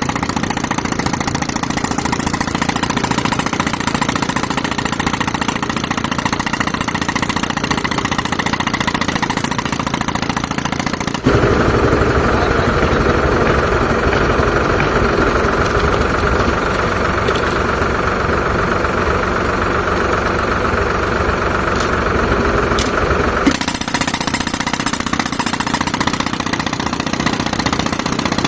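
Tractor engine driving an air compressor, running steadily. About eleven seconds in, a louder, rougher sound cuts in abruptly and lasts about twelve seconds, then stops just as suddenly and the steadier engine sound returns.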